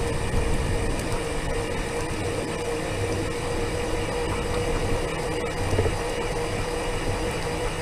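Scooter running steadily along a paved path: its drive motor gives a constant whine over the rolling noise of the tyres.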